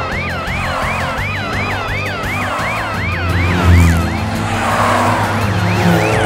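Cartoon police car siren: a fast wail repeating about three times a second, each one falling in pitch, over background music with a deep bass line. The siren drops out about four seconds in, just after a loud deep note, and comes back near the end.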